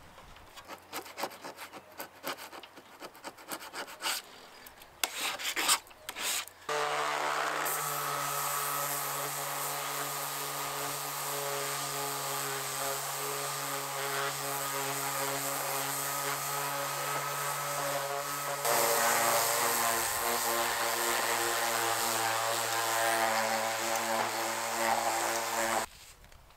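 Battery orbital sander with a soft interface pad running against the painted hull of a wooden yacht, a steady motor hum over a gritty hiss, starting about a quarter of the way in and cutting off just before the end. Around two-thirds of the way through its pitch drops slightly and it gets louder as it bears harder on the hull. Before it starts there are scattered scraping and rubbing noises.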